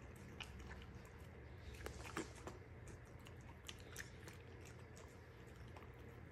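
A corgi nosing through a plastic bowl of chopped leafy vegetables, with faint, irregular crunching and chewing clicks; the loudest crunch comes a little past two seconds in.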